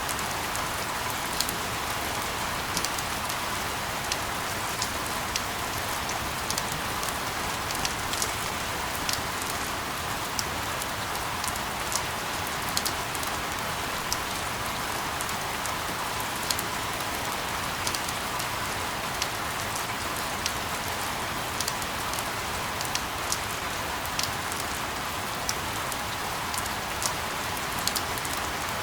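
Steady rain, an even hiss with sharp drips landing on top of it a few times a second.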